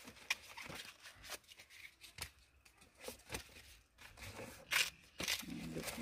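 Freshly picked ears of green corn being trimmed with a machete and handled: irregular rustling, crunching and tearing of the husks, with scattered sharp clicks and snaps.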